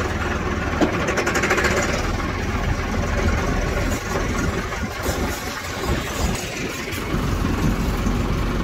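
Massey Ferguson 385 tractor's diesel engine running steadily while the tractor moves slowly, dipping slightly in loudness partway through.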